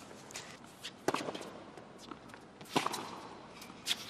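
A few sharp knocks of a tennis ball, struck by rackets and bouncing on a hard court, spaced a second or more apart over a faint arena hush.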